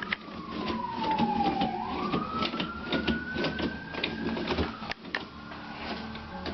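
Toilet-paper roll being pulled and spun: the paper rustles and rattles with many quick clicks, under one long squeak that slides down in pitch for about two seconds and then climbs back up, as a spinning roll's holder would squeak as it slows and speeds up again.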